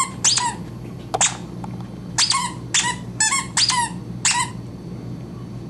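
Squeaker in a red plush dog toy squeaking as a Weimaraner puppy chews it: a string of about six sharp, high squeaks, some doubled, that stop near the end.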